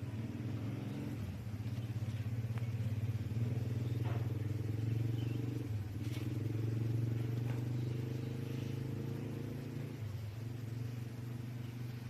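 Steady low hum of a running motor, wavering slightly in level, with a few faint clicks.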